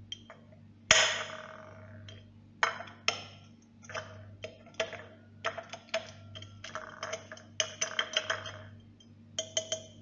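Metal fork crushing small white tablets against a ceramic plate: a series of sharp clinks and taps with a short ring, the loudest about a second in, then irregular clusters of clinks.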